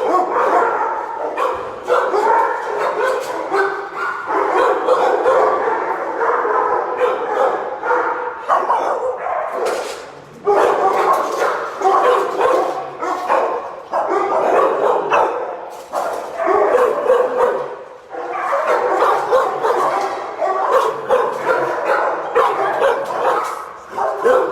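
Many dogs barking at once in a shelter kennel: a continuous din of overlapping barks, with brief lulls about ten and eighteen seconds in.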